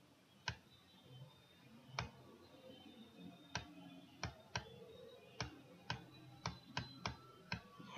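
Faint, sharp clicks, about a dozen at uneven intervals, coming closer together in the second half, made while words are handwritten stroke by stroke on a computer's virtual whiteboard.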